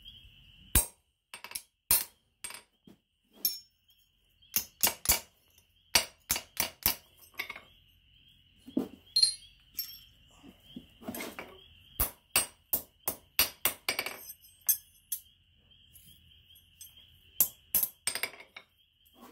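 Blacksmith's 1 kg engineer's hammer striking a small forged steel hook on the anvil: irregular single blows and quick runs of blows, some with a short metallic ring. A faint steady insect trill continues in the background.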